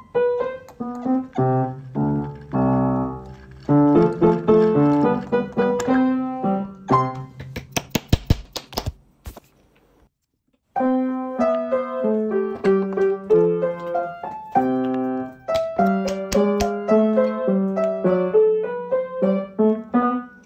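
Solo piano music, which breaks off for about a second near the middle and then resumes.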